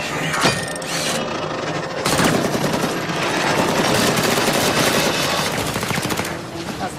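Automatic gunfire: a couple of single shots in the first second, then a long unbroken burst of rapid fire from about two seconds in, stopping shortly before the end.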